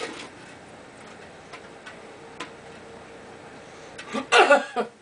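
Faint scattered ticks and clicks, then about four seconds in a loud, short vocal outburst from a man, lasting about half a second.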